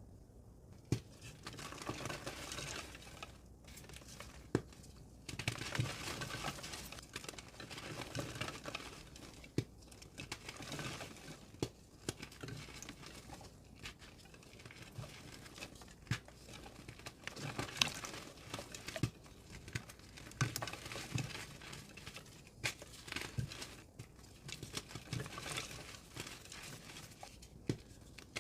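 Re-formed gym chalk blocks being crushed and crumbled: dry, dusty crunching that comes in irregular waves, dotted with sharp snaps.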